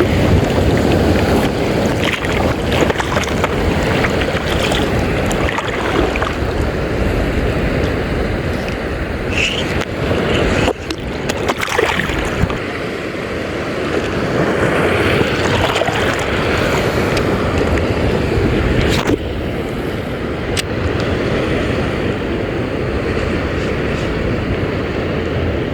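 Sea water washing and slapping around a small boat, with wind buffeting the microphone and a few light clicks.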